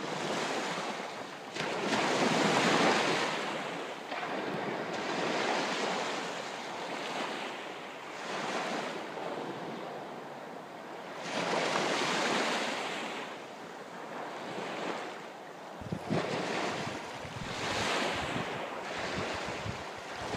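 Sea waves washing on the shore, rising and falling every few seconds, with wind gusting on the microphone near the end.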